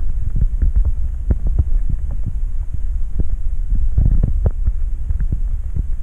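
Muffled underwater noise picked up by a submerged camera: a steady low rumble with scattered irregular clicks and knocks from water movement and handling.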